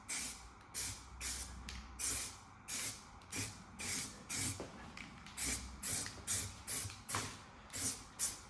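Short bursts of spray primer hissing from a spray can onto a steel wheel, about two a second, as the bare metal is coated in quick passes.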